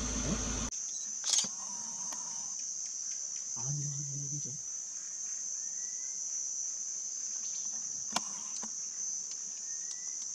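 Steady high-pitched drone of insects, with a low hum that stops within the first second, a couple of sharp clicks, and a brief low voice about four seconds in.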